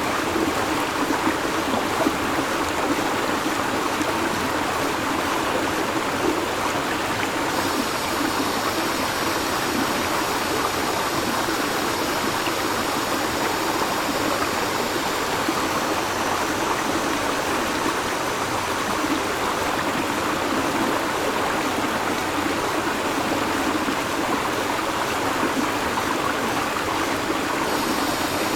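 Steady rushing of a river's flowing water. A high, steady buzz of cicadas comes in about a quarter of the way through, fades around the middle, and returns near the end.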